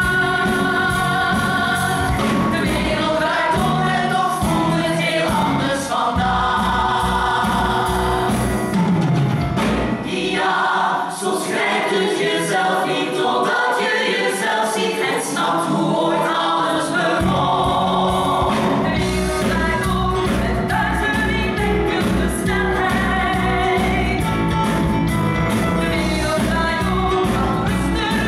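Live stage musical number: a cast of singers sings together over a band with a steady drum beat; the bass and drums drop out for a few seconds about ten seconds in, then come back.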